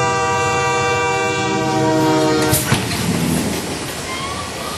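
A horn sounds one steady blast of several tones at once for about two and a half seconds, then gives way to a steady rushing rumble.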